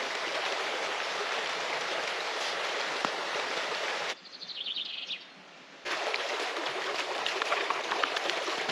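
Shallow stream rushing steadily, with occasional sharp crackles from a wood campfire. About four seconds in, the water noise drops out for nearly two seconds to a quieter stretch where a small bird gives a quick run of high chirps.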